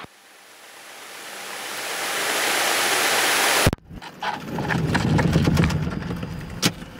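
Handling noise on a cockpit headset microphone as the headset is taken off: a hiss that swells for about three and a half seconds and cuts off with a click, then crackling and rubbing as the headset is handled.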